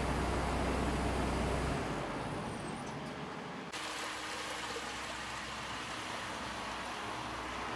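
A heavy machine's engine idling with a steady low hum that dies away about two seconds in, then steady outdoor background noise.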